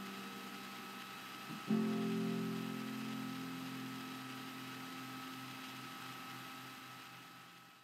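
Concert harp: a low plucked chord rings on, then about two seconds in a new, deeper chord is struck and left to ring, dying away slowly to nothing as the closing chord of a piece.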